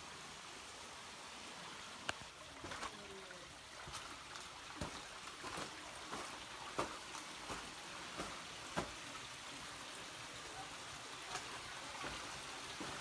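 Small shallow creek trickling over rocks, a soft steady hiss, with scattered sharp clicks and knocks through most of it.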